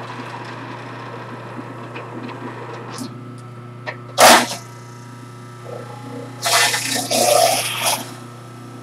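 Electric juicer running with a steady low hum while pieces of fennel are pushed down its feed chute and ground. There is a short loud grinding burst about four seconds in, and a longer grinding stretch of about a second and a half near the end.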